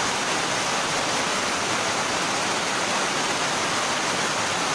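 Floodwater from a heavy downpour rushing and splashing across a floor, a loud, steady rush without a break.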